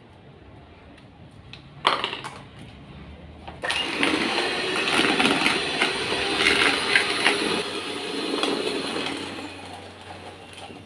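Electric hand mixer creaming margarine and sugar in a plastic bowl: after a short knock about two seconds in, the motor starts about four seconds in, runs steadily for about six seconds, then winds down near the end.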